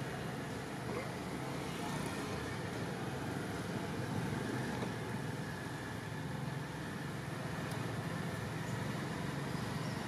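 Steady low background rumble, even throughout, with no distinct events.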